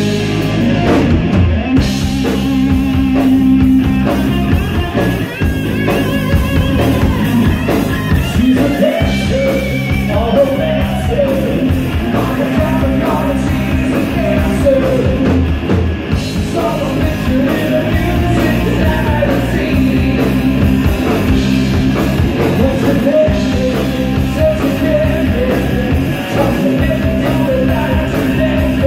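Live rock band playing: electric guitar, electric bass and drums.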